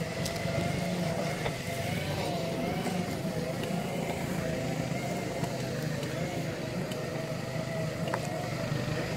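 Segway's electric drive whining in a steady tone that wavers gently in pitch with speed, over a low rumble of knobby tyres rolling on dry grass and dirt, with a few faint clicks.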